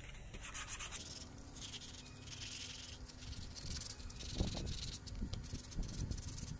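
Sandpaper rubbed back and forth around a screwdriver handle, a scratchy hiss in uneven strokes that grows fuller after the first second or so. A few dull low thumps come in the second half, the loudest a little past halfway.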